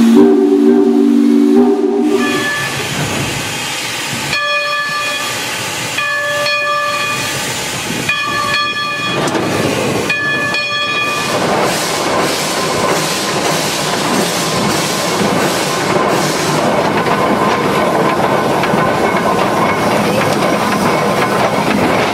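Climax No. 6 geared steam locomotive's steam whistle blowing: a low blast of several tones in the first two seconds, then four shorter, higher-pitched blasts. After that comes the locomotive running, with steady steam hiss and rail clatter.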